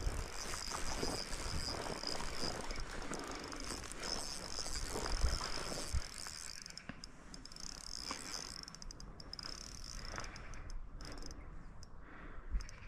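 Fishing reel being cranked to retrieve line, a steady high whirring that stops and starts several times in the second half. Low rumbles and knocks from handling and wind on the microphone run underneath.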